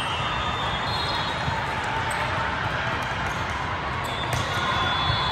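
The steady din of a volleyball tournament in a large, echoing hall: many people talking and calling, with sharp slaps of volleyballs being passed and hit.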